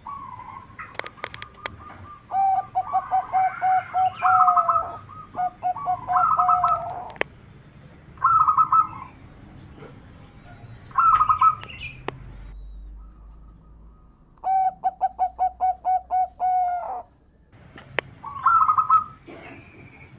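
Zebra doves (perkutut) cooing: repeated phrases of quick, short coo notes, each phrase lasting one to two seconds. Two or more birds overlap in the first few seconds.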